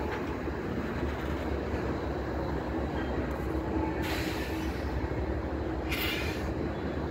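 Norfolk Southern diesel locomotives rolling by beside a double-stack container train, with a steady low engine and rail rumble. Two short bursts of hiss come about four and six seconds in.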